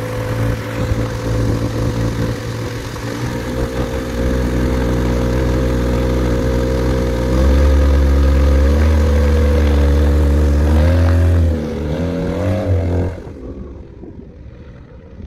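Viking 130 four-cylinder aircraft engine and propeller on a Zenith 750 Cruzer, running on a taxi test close to the microphone. It gets louder about seven and a half seconds in and its pitch rises and falls near the end. About thirteen seconds in the sound drops abruptly to the faint engine of the plane taxiing away, with wind on the microphone.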